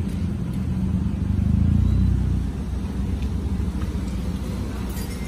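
Low, steady rumble of a motor vehicle's engine running nearby, swelling for about a second near the middle and then easing off.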